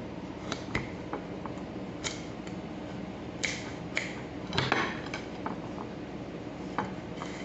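Kitchen knife tapping and scraping against a plate while slicing vegetables: a scattered series of sharp clicks, the loudest a short cluster about four and a half seconds in.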